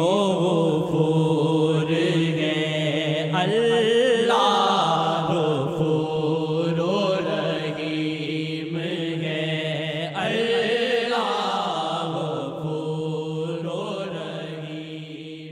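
Devotional Urdu hamd chanted over a steady, held low drone, the melody gliding and wavering in long phrases; it fades out near the end.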